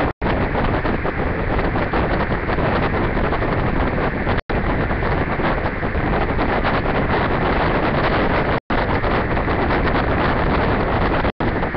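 Steady loud rushing noise with no pitch, broken by four brief dead-silent dropouts about every four seconds.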